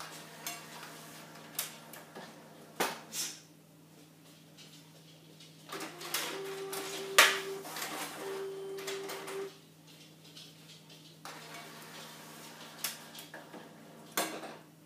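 Old inkjet printer mechanism rebuilt as a target changer, cycling paper target cards: sharp clicks and clacks from the feed rollers and carriage, with a motor whining twice in the middle. A faint steady low hum runs underneath.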